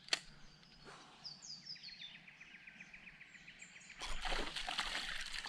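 A sharp click, then birds chirping with short falling calls over a quick run of light ticks. About four seconds in, louder splashing and sloshing of water begins at the kayak as a small mangrove jack is brought in.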